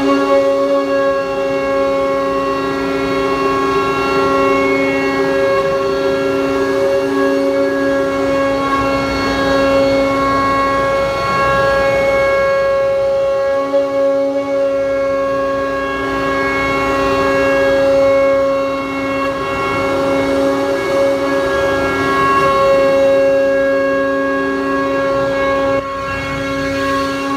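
CNC router with a vacuum table milling a grid of pockets into an MDF sheet: a steady machine whine of several held tones over cutting noise. The lowest tone drops out for a couple of seconds around the middle, then returns.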